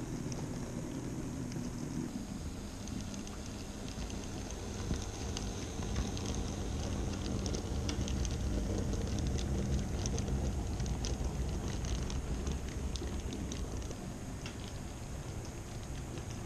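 Model railway train running along the track, heard from a camera riding on it: a steady low rumble of wheels and motor with many irregular light clicks, a little louder in the middle.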